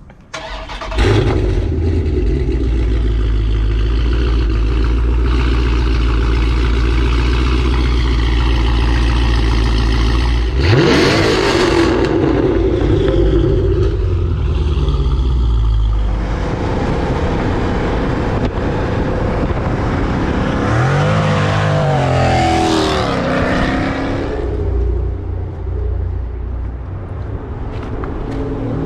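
Modified Dodge Challenger Scat Pack's 392 Hemi V8, breathing through shorty headers, cat-delete pipes and glass-pack mufflers, comes in suddenly about a second in and runs steadily. Its pitch climbs in a rev near eleven seconds and swings up and down again a little past twenty seconds.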